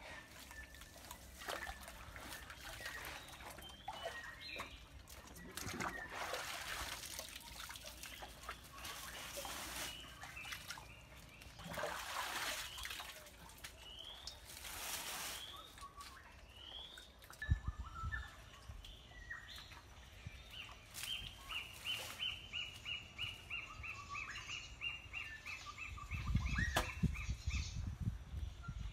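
Small birds calling, with short chirps throughout and a long run of quick repeated calls near the end. Under them come several bursts of noise and a few low thumps.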